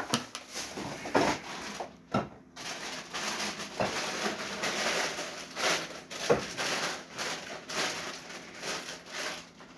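Paper cutouts rustling and scraping as fingers slide them over a tabletop: a run of irregular soft scrapes and rustles.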